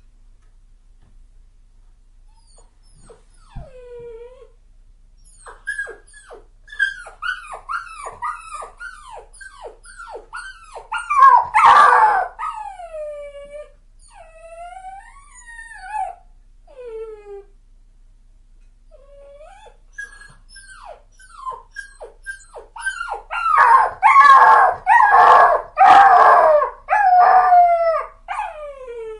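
Puppy whimpering and yelping: rapid series of short high-pitched cries, each falling in pitch, in two bouts with a short pause between them. The cries grow louder and more crowded in the middle of each bout.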